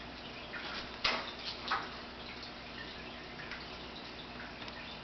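A few light clicks and taps from a laptop screen panel being handled and seated in its lid brackets, the sharpest about a second in and another a little later, over a faint steady hum.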